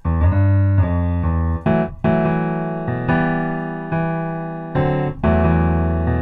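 Piano chords with deep bass notes, a new chord struck about every second and each ringing and fading into the next, playing back as a repeating loop.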